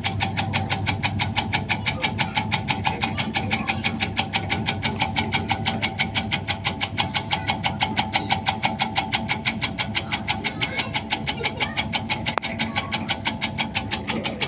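Tobacco-cutting machine driven by a small water-pump engine, running steadily with a rapid, even beat. A single sharp click sounds near the end.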